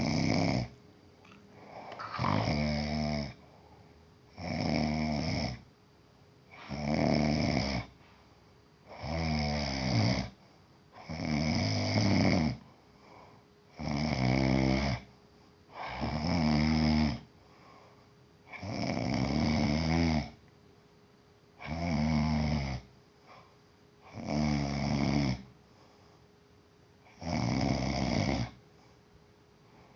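Steady snoring: a long, rattling snore about every two and a half seconds, each lasting about a second, with quiet breaths between.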